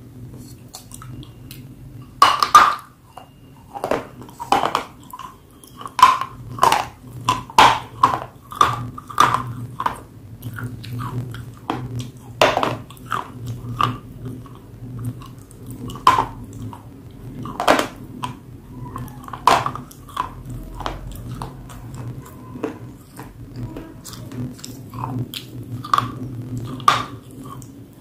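Close-up crunching as a person bites off and chews hard grey chalky chunks, sharp crunches coming irregularly every second or two with quieter chewing in between.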